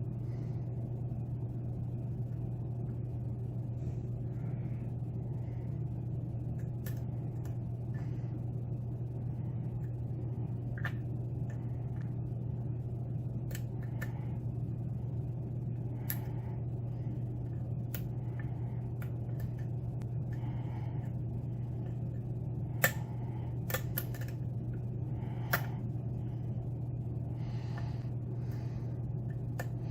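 Small, irregular metallic clicks and taps of a lock pick and tension wrench working the pins of a Yale pin-tumbler lock during single-pin picking, over a steady low hum. Two sharper clicks, a couple of seconds apart, are the loudest, about three quarters of the way through.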